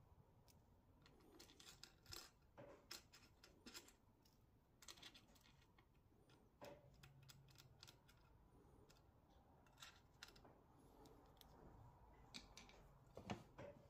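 Faint, scattered small metal clicks and clinks of pins and wing-nut hardware being handled and set into the slot of a mini disc sander's metal table.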